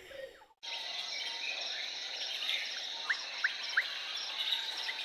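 Jungle ambience: a dense, steady chorus of insects with birds calling, including three short rising whistled notes about three seconds in. It cuts in abruptly after a momentary gap about half a second in.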